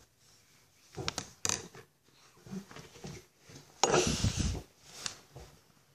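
Handling noises close to the microphone: a few sharp clicks, then a loud rustling rub about four seconds in.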